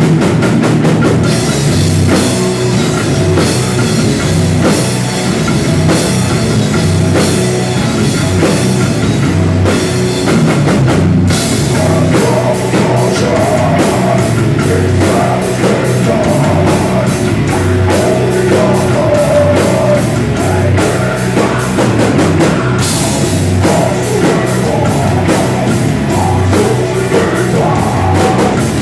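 Heavy rock music driven by a full drum kit, the band coming in fully about a second in.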